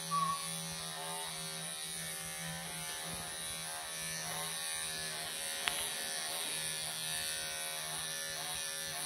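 Wahl professional electric pet clippers running with a steady buzz as they shave through a Persian cat's thick coat, with one short tick about halfway through.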